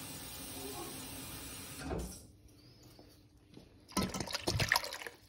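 Water running steadily into a bottle for about two seconds; then, about four seconds in, the rinse water glugging out of the tipped bottle and splashing into a steel pan of browned chicken and tomato passata.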